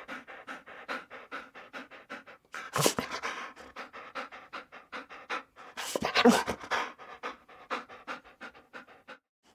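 A dog panting fast and hard, about four breaths a second, with two louder outbursts about three and six seconds in.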